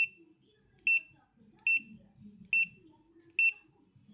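Electronic alarm of a faulty product beeping, five short high beeps a little under a second apart. The alarm keeps sounding on its own, which the owner takes as a defect.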